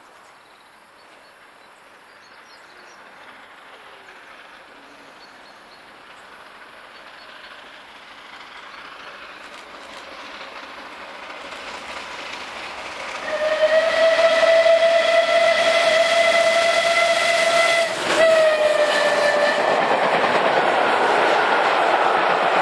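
Bulleid Battle of Britain class 4-6-2 steam locomotive No. 34067 Tangmere approaching with its train, growing steadily louder, then sounding a long steam whistle about 13 seconds in. The whistle's pitch drops at about 18 seconds as the engine passes, and the rush of the coaches going by follows.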